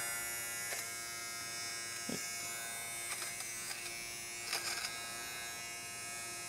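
Philips GC026/80 battery-powered fabric shaver running with a steady motor whine as it is moved over a knitted hat, its spinning blades cutting off pills. A few faint knocks come from the shaver being shifted on the fabric.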